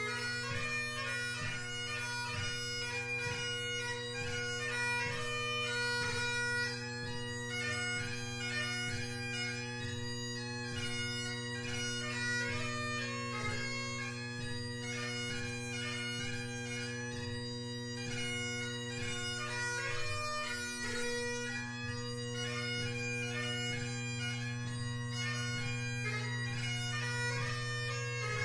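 Great Highland bagpipe with McCallum drones and a G1 blackwood chanter playing a tune: steady drones hold under a fast chanter melody of quickly changing notes.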